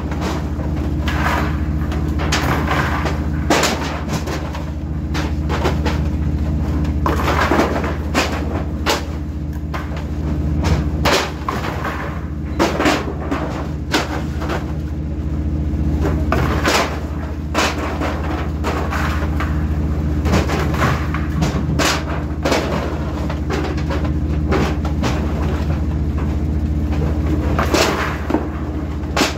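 Metal freezer trays and frozen skipjack tuna clattering and knocking as the fish are tipped down hatches into the fish hold, with many sharp knocks at irregular intervals. A steady low machinery hum runs underneath.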